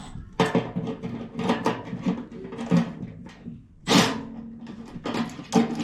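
Irregular metallic clinks, knocks and scrapes of hand tools and sheet-metal parts as a furnace blower motor's mount is loosened, with one louder clank about four seconds in.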